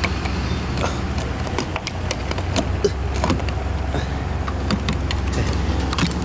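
Gasoline pump dispensing fuel through a nozzle into a car's tank: a steady low hum with scattered small clicks from the nozzle being handled.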